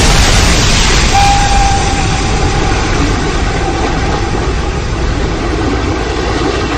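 Train passing at speed close by: a loud, steady rush and rumble of wheels and carriages that slowly eases off. A faint held high tone sounds about a second in.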